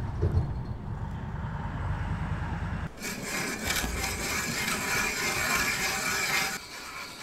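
A low rumble, then from about three seconds in a hand ice auger cutting into river ice with a grainy, crunching scrape that stops suddenly.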